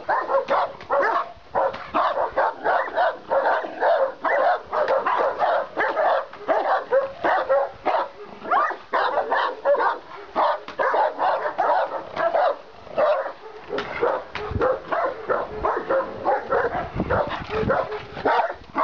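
Caucasian Shepherd Dogs barking in a rapid, unbroken run of barks, several a second.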